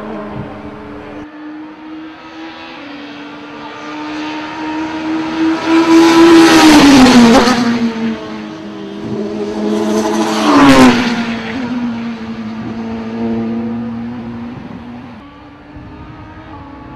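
Touring race cars at high revs on a circuit, passing close by twice, about four seconds apart; each time the engine pitch drops sharply as the car goes past, with engines still audible in the distance between and after.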